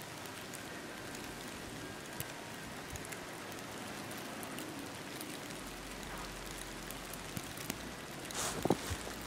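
Heavy snowfall: a steady soft hiss with scattered light ticks of falling snow. A few louder knocks come near the end.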